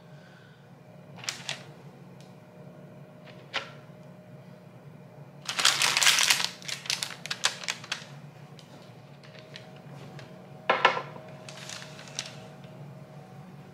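Parchment paper crinkling and crackling as squash halves are pressed down onto it, the loudest stretch about halfway through, with a few light knocks before it and another short crackle near the end.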